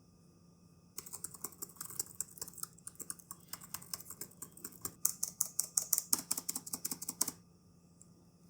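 Typing on a low-profile scissor-switch wireless keyboard (Zebronics ZEB K5002MW), a quick run of light key clicks. It starts about a second in and gets louder near the end, then stops abruptly.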